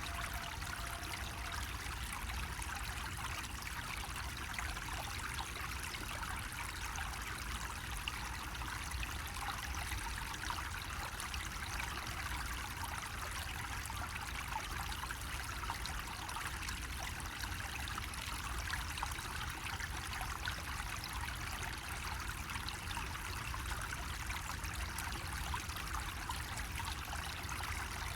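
Water trickling and splashing steadily from a bamboo spout, an even, unbroken flow with a faint low rumble underneath.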